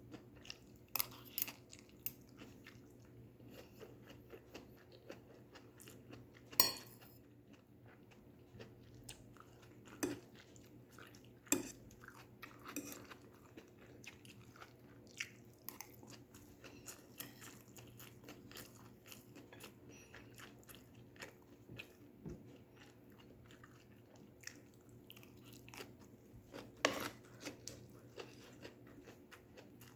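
Close-up eating of stir-fried vegetables: steady chewing with crisp crunching bites, a few sharp crunches standing out well above the rest, over a faint steady hum.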